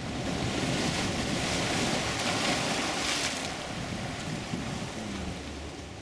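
Ocean surf washing in over a rocky shoreline: a wave surges up about half a second in, is loudest for the next few seconds, then eases back.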